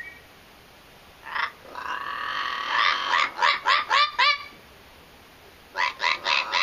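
Blue-fronted amazon parrot calling. A short call comes first, then a longer held note that runs straight into a fast string of about six clipped squawks. After a pause, another quick run of squawks starts near the end.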